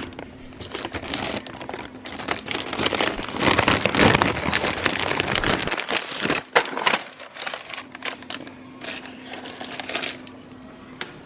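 Rustling and crinkling handling noises with many irregular sharp clicks, busiest in the first half.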